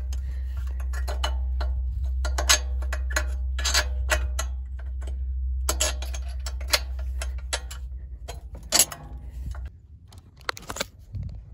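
Irregular light metallic clicks and ticks, several a second, over a steady low rumble that stops near the end.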